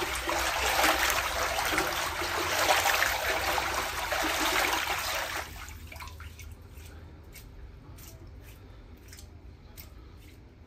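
Water rushing and splashing in a large stainless-steel dough-mixer bowl as hands stir through it. The rush stops abruptly about five and a half seconds in, leaving soft sloshing and a few small clicks.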